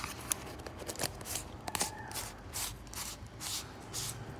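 Hands turning and handling a metal FX Airguns air-rifle pellet tin: a string of short scrapes and rubs, about two or three a second.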